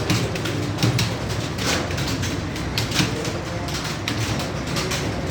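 Many computer keyboards being typed on fast at once: a dense, irregular clatter of keystrokes over a steady low hum.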